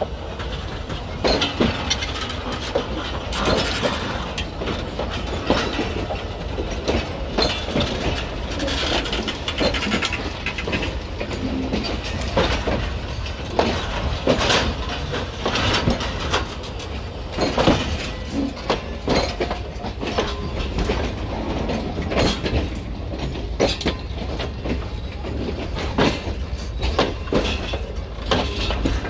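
Pakistan Railways passenger coaches rolling slowly past at track level while shunting: steel wheels knock irregularly over the rail joints above a steady low rumble from the bogies.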